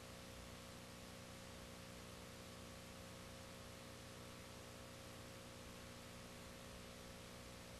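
Near silence: a steady hiss with a low electrical hum, the noise floor of a silent film transfer.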